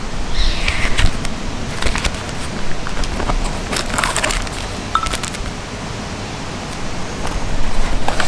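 Handling of a nylon backpack: fabric rustling and the rasp and clicks of its zippered top pocket being worked, over a steady low rumble.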